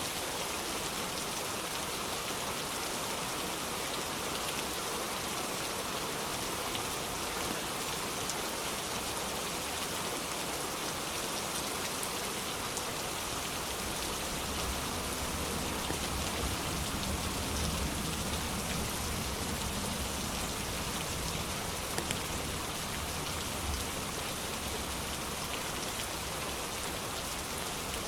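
Steady, even rainfall. A low rumble, which the video's title and tags suggest is distant thunder, swells about halfway through and then fades.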